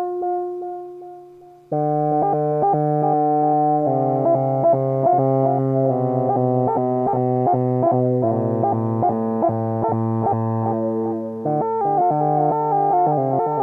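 Moog Mother-32 synthesizer notes run through a 2hp Delay Eurorack module: a single note sounds and fades, then about two seconds in a dense, sustained layering of repeating synth notes sets in, with quick regular note attacks and the pitches shifting every few seconds.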